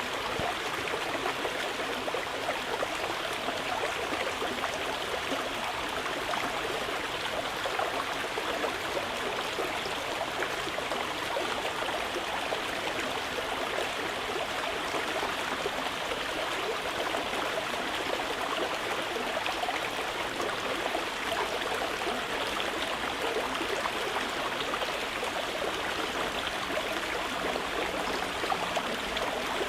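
Mountain river flowing over rocks: a steady, even rushing of water.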